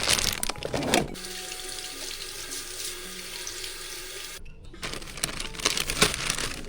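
Water running from a tap into a sink as a steady hiss for about three seconds, cutting off abruptly. Short rattling handling noises come just before and again after it.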